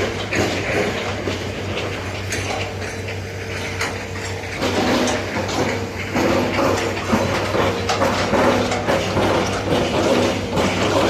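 Hitachi excavator running at work: a steady diesel engine hum with repeated metallic clanks and knocks. A higher steady tone joins about halfway through.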